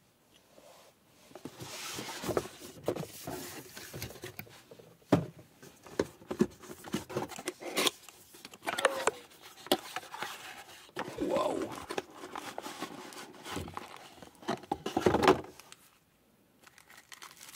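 Hands handling cardboard packaging: box flaps opened and rubbed, with rustling, scraping and irregular taps and knocks. The handling gets louder near the end, as a coiled cable in a plastic bag is lifted out.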